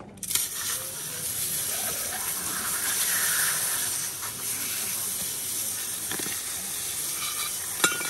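Water hissing steadily from a hose spraying over a fish on a stone ledge as it is rinsed and scaled; the spray starts suddenly just after the start. A single sharp click near the end.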